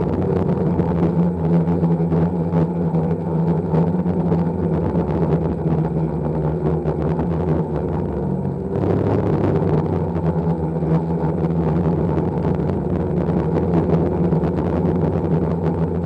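Octocopter's eight electric motors and propellers humming steadily, heard through the camera mounted on the craft, with wind buffeting the microphone.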